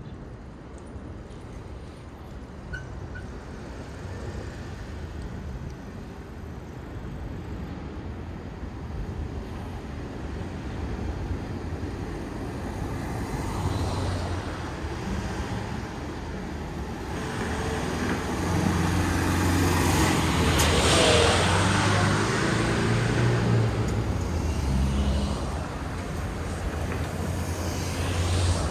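Road traffic: motor vehicles running past, with engine rumble building to a close pass about two-thirds of the way through, then easing.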